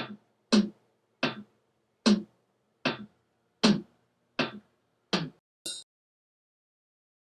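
Eight sharp percussive hits about three-quarters of a second apart, each ringing briefly, followed by one short, bright, high-pitched hit.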